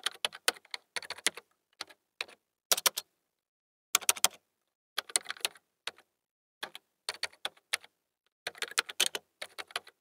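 Computer keyboard typing: quick runs of key clicks broken by short pauses.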